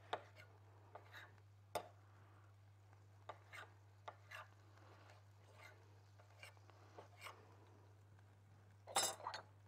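Chef's knife slicing seasoned raw chicken breast into thin strips on a stone counter: faint, irregular taps of the blade against the counter, a few a second, over a steady low hum. A brief louder clatter of clicks comes near the end.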